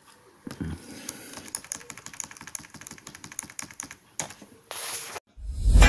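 Computer keyboard keys pressed in a rapid, uneven run of clicks for about four seconds. A short burst of hiss follows, then music comes in loudly near the end.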